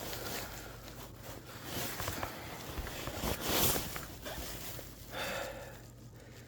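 Rustling and scuffing of a person moving crouched through an attic, with louder brushing scrapes about two and three and a half seconds in.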